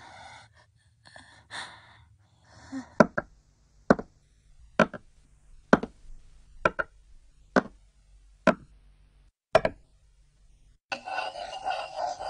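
Soft feverish sighing breaths, then slow, evenly spaced cartoon footsteps: about nine sharp knocks roughly a second apart. A louder continuous sound comes in near the end.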